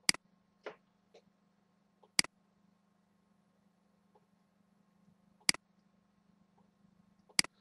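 Computer mouse button clicking: four sharp single clicks a couple of seconds apart, with a few softer clicks between them, over a faint steady low hum.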